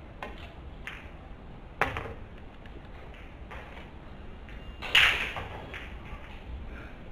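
Pool balls knocking on the table as a shot plays out: a few sharp clicks in the first two seconds, then a louder knock with a short ringing tail about five seconds in.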